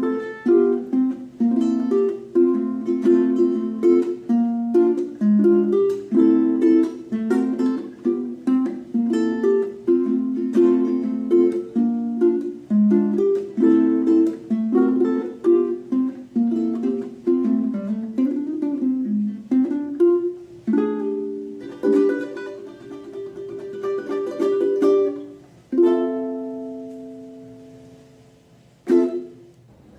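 Maestro Island Series UT-MR ukulele played fingerstyle in a jazz style: a run of quick plucked chords that slows after about twenty seconds into a few ringing chords. The last full chord is left to fade out, and a single short strike follows near the end.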